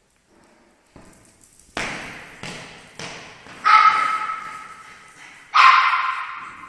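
A dog barking: about six sharp barks, the last two loudest.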